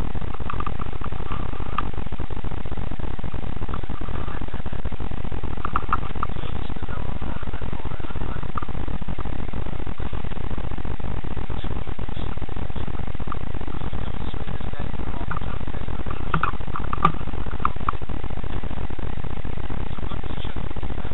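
Steady low rumbling noise from a cheap action camera's poor microphone, with a few faint, brief higher sounds about a second in, around six seconds in, and again near the three-quarter mark.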